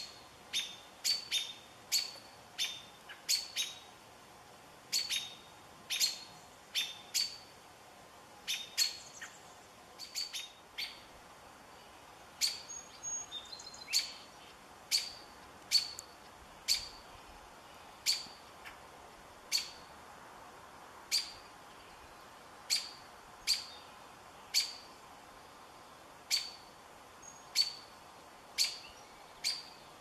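A small songbird repeating a sharp, high chip call, about one to two chips a second, with a faint steady hiss of background noise beneath.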